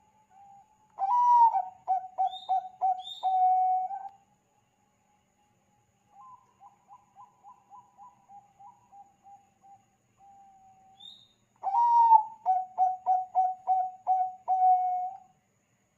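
Zebra dove (perkutut bangkok) cooing: two loud phrases, each a short opening note followed by a quick run of staccato coos. A softer run of coos comes between them.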